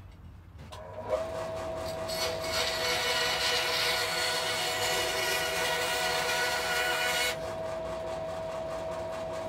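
Bandsaw starting up and running with a steady hum, its blade cutting a small piece of wood to length from about a second in. The cut ends about seven seconds in, and the motor keeps running.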